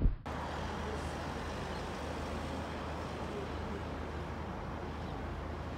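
Steady outdoor city noise: an even hiss of distant traffic with a constant low hum beneath it.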